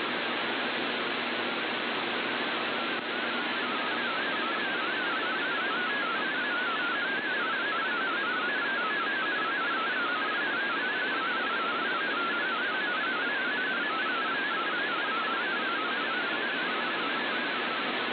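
MFSK32 digital text signal from the VOA Radiogram shortwave broadcast, received in AM on a Kenwood TS-480SAT: a fast, jittering warble of tones near 1500 Hz over steady loud hiss. The tones stand out most clearly through the middle stretch, and the heavy noise marks weak, poor reception that garbles parts of the decoded text.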